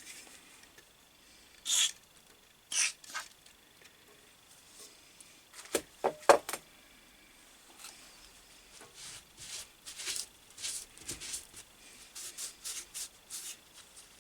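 Short scrapes and clicks of small metal parts being handled and worked on an Atlas 10 lathe's fixed steady, with a cluster of sharp knocks about six seconds in and a quick run of light scrapes near the end.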